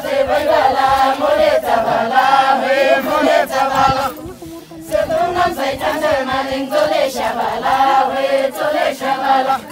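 A group singing a Mhendomaya, a Tamang folk song, together in chant-like phrases, with a short break about four seconds in.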